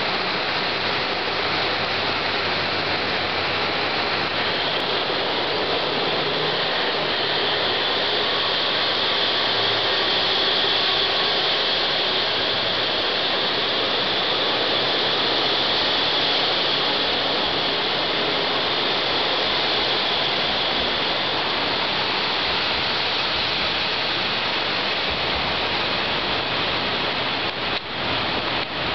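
KiHa 183 series diesel multiple unit pulling out of a station, its diesel engines running under load in a loud, steady, echoing noise under the station roof.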